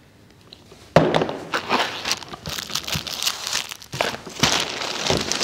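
Plastic packaging crinkling and rustling as it is handled, starting about a second in with a sharp crackle and going on in uneven bursts.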